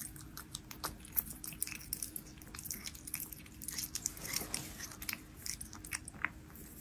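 Devon Rex cat chewing and licking its lips after eating soft food from a hand: a rapid run of small wet mouth clicks that thins out about six seconds in.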